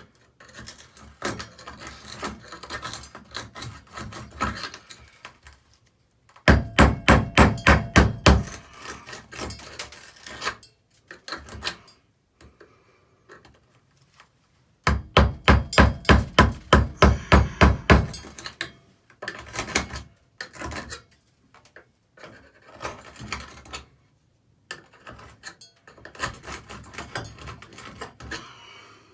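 Two runs of quick hammer taps, about five a second, chipping out grout packed around a tub and shower valve stem in tile. Between the runs there is lighter scraping and clinking of tools.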